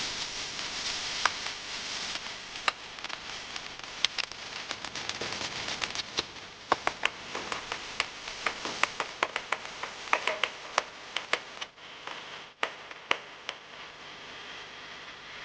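Food cooking in a pan: a steady sizzling hiss with many sharp crackles and utensil taps, the sizzle dying down near the end.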